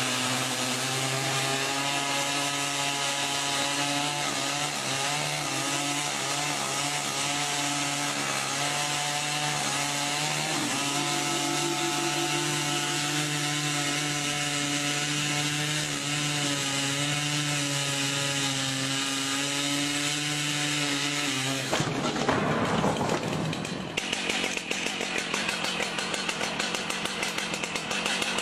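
A gas chainsaw runs steadily at high revs as it saws into the wooden case of an upright piano. About 22 seconds in, the sound breaks off sharply into a falling sweep, and then a heavier engine with a rapid throbbing pulse takes over: the oversized long-bar chainsaw, which the title calls V8-powered.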